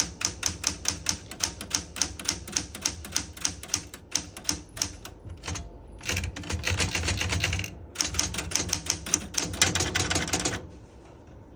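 Keys of a vintage typewriter being struck, a steady run of clacks at about four to five a second, then faster, denser runs of typing that stop about a second before the end.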